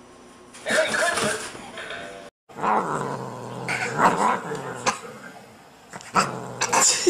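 A cat growling and yowling in several drawn-out calls after a sudden cut about two seconds in. Before the cut, about a second and a half of a louder, different sound.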